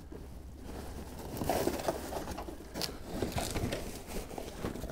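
Rummaging through a plastic bag: irregular rustling and crinkling of plastic, with small handling knocks.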